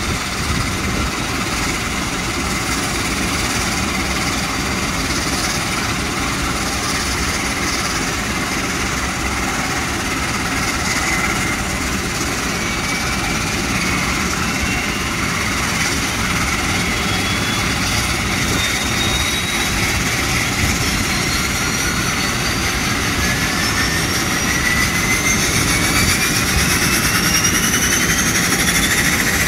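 De Havilland Canada Dash 8-100 turboprop engines during start: one engine running at ground idle while the second engine spools up. From about the middle on, its turbine whine climbs steadily in pitch, and the overall sound grows louder near the end.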